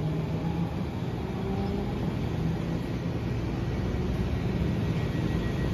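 Steady hum of a Washington Metro railcar standing at the platform with its equipment running, low and even throughout. A faint high steady tone comes in near the end.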